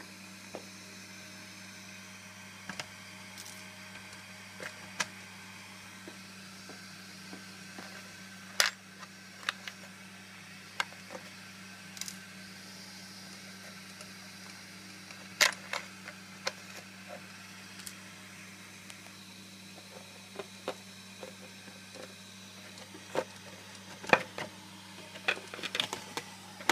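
Scattered clicks and knocks of hands handling a hard plastic RC car body shell close to the microphone, over a steady low hum.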